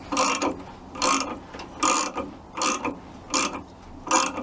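Wrench ratcheting on the generator pulley nut of a VW Type 1 engine: a short rasping clatter with each back-swing, repeated about every 0.8 s, six times.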